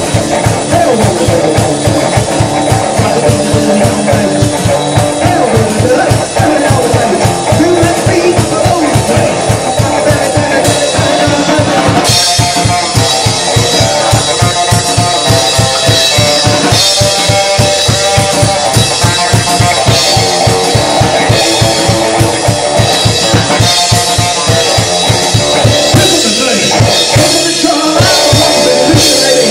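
Rockabilly song played live: a Supro electric guitar over a drum kit keeping a fast, steady beat, with sung vocals in places. About twelve seconds in, the sound turns brighter.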